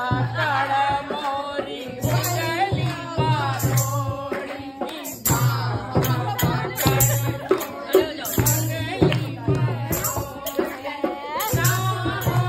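A group of women singing a Kumaoni Holi folk song together, accompanied by rattling percussion and sharp clicks that may be hand claps, with a low beat pulsing about every two seconds.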